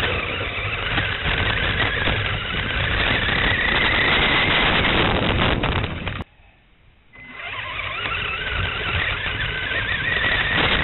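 Electric drive motor and gears of a WLtoys L969 RC truck whining at speed over a loud, rough noise, picked up by the onboard camera's microphone. About six seconds in the sound cuts off abruptly and stays almost silent for about a second as the truck stops, then the whine builds up again as it pulls away.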